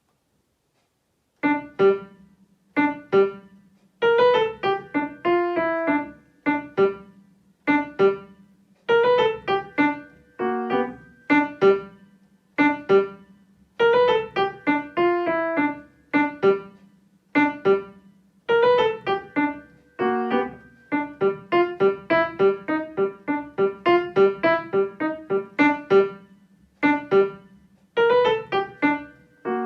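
Piano playing a beginner-level blues piece in short, detached notes and chords with a halting rhythm and brief breaks between phrases, starting about a second and a half in.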